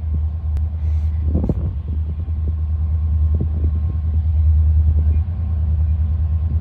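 Low, steady rumble of approaching Union Pacific diesel-electric freight locomotives, three units leading, growing gradually louder as they come closer.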